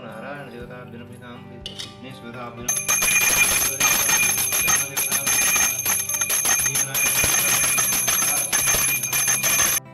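Brass puja hand bell rung continuously with rapid strokes, starting about three seconds in and cutting off abruptly near the end.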